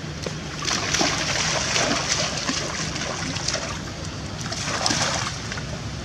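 Shallow rainwater splashing and sloshing as a monkey wades through it. It comes in two spells: a longer one starting about a second in, and a shorter one near the end.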